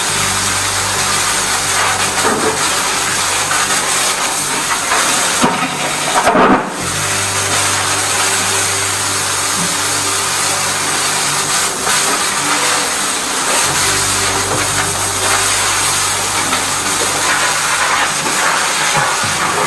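High-pressure drain jetter spraying water through a turbo drill nozzle inside a clogged toilet drain pipe. It makes a loud, steady hiss over the low, steady hum of the jetter's pump, with a brief louder burst about six seconds in.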